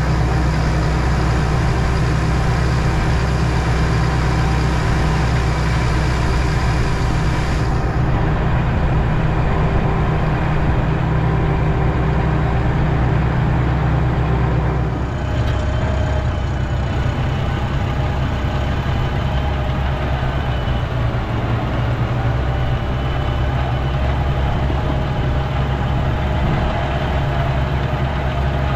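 Tractor engine running steadily, heard from inside the closed cab. A hiss in the upper range drops away about eight seconds in, and the engine note shifts slightly about halfway through.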